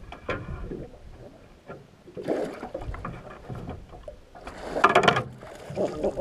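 Splashing as a largemouth bass is scooped into a landing net beside a boat. There is a shorter splash a little after two seconds and the loudest one about five seconds in, as the net comes up out of the water with water pouring off it.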